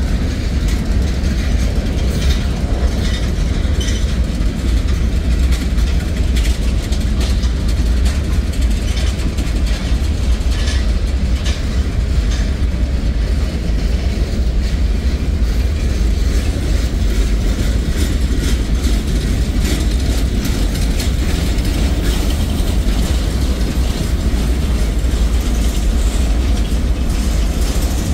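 Freight cars of a mixed manifest train rolling past at a steady speed: a continuous low rumble of steel wheels on rail, with scattered metallic clicks and clanks from the cars.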